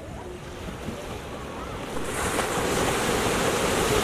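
Small sea waves breaking and washing up a sandy beach, the surf swelling louder about two seconds in, with wind rumbling on the microphone.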